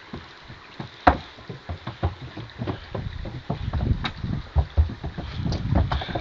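A horse's hooves knocking and thudding on a bridge in an irregular walking rhythm, with one sharp loud knock about a second in; the hoofbeats grow heavier and closer together from about halfway through.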